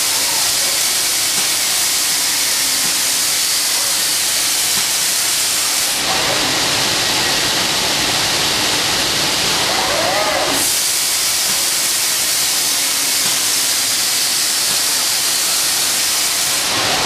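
Robot-mounted spray-up gun spraying resin and chopped fibre onto a bathtub: a loud, steady hiss of compressed air. The hiss turns duller for about four seconds midway, then comes back bright.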